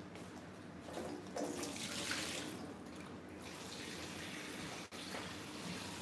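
Water running from a kitchen tap into a sink, a steady hiss that gets louder for a couple of seconds in the middle.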